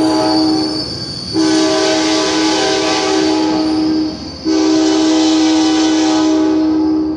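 Sounder commuter train horn sounding in long blasts: one blast ends about a second in, then come two long blasts of about three seconds each, with the last cutting off at the end. The train's running noise fills the short gaps between them.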